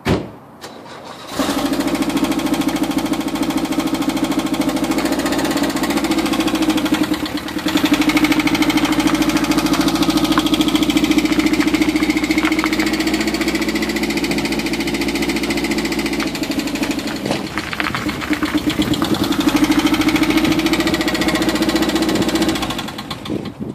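VW Vanagon's rear-mounted engine cranked and catching about a second in, then running steadily for about twenty seconds. It dips briefly about seven seconds in and comes back louder, then shuts off just before the end, run to test the newly replaced and bled clutch slave cylinder.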